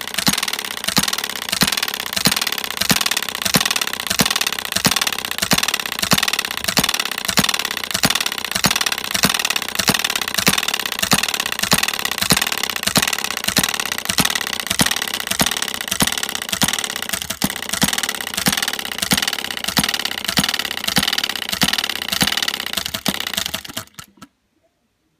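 Small hit-and-miss model petrol engine, a Philip Duclos vertical open-crank design, running with a rapid, even beat of sharp clicks. It is on its first run, with its fuel mix and settings not yet right. It stops suddenly near the end.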